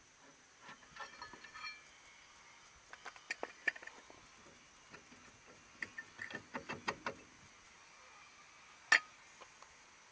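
Metal parts and hand tools clicking and clinking in scattered clusters, with one sharp, loudest click near the end.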